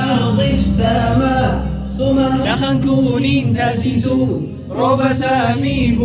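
A nasheed: a male voice singing a melismatic Arabic devotional melody over a steady drone.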